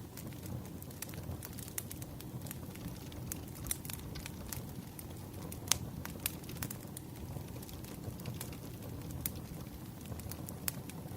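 Wood fire burning with a steady low rumble and irregular sharp crackles and pops of the logs, one louder pop a little past the middle.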